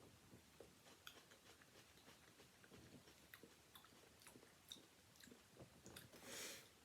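Near silence with faint scattered clicks and a soft breath drawn in near the end.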